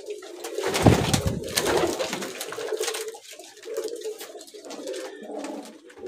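Many domestic pigeons cooing together in a small enclosed loft, a steady overlapping low warble. About a second in, a brief low rumbling thump sounds under the cooing.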